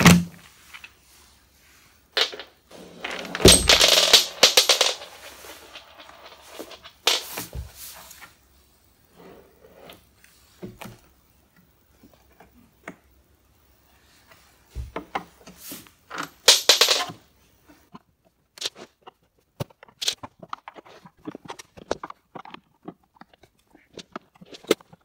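Plastic cabinet of a JBL Eon15 G2 powered speaker being handled and turned over while its screws come out: scattered clicks, knocks and light rattles of screws and a screwdriver, with a few louder bouts of shifting and scraping.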